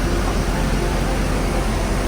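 Steady low rumble and hiss of a vehicle running, with no distinct events.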